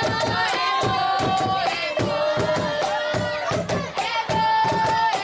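Boi-bumbá folk music: voices holding long sung notes over a steady, even drumbeat.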